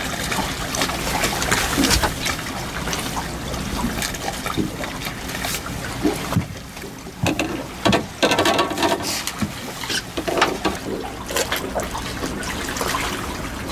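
Water lapping and trickling against the hull of a small fishing boat, with scattered small clicks and knocks.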